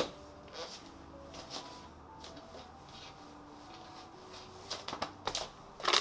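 Faint soft background music: a slow melody of single held notes. Light rustles and clicks of handling run under it, a few louder ones near the end.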